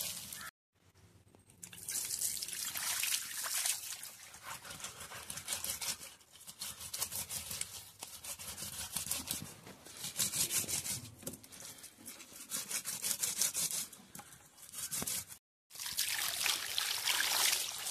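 Water pouring and splashing over freshly dug cassava roots on a stone slab as they are washed, a continuous splashing trickle broken by a couple of brief cuts.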